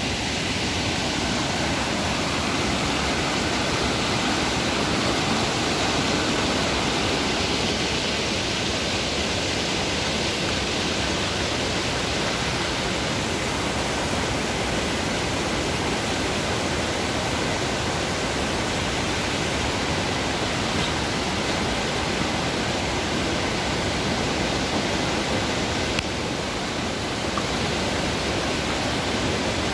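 Rushing river water running over shallow rapids: a steady, unbroken rush.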